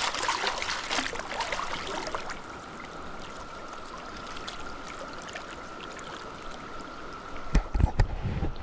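Mountain stream water running steadily, with splashing in the first couple of seconds. A faint steady drone of a cicada chorus sits behind it, and low bumps come near the end.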